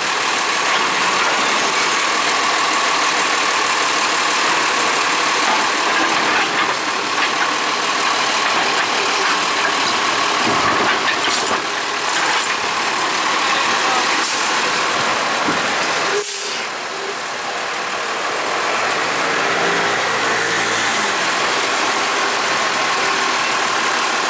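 Autocar ACX refuse truck with a Heil Durapack Python automated side loader: the engine runs steadily under load while the hydraulic arm dumps a wheeled recycling cart and sets it down, with a steady whine and a few knocks of the cart and arm. The sound dips briefly about two-thirds of the way through, then the truck's engine carries on as it moves off.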